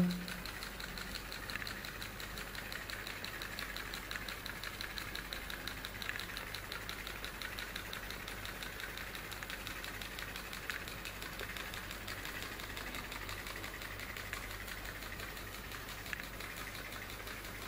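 Homemade pop-pop steam boat running: its candle-heated soda-can boiler pulses water through two fridge-condenser pipes with a quiet, fast, even ticking putt-putt.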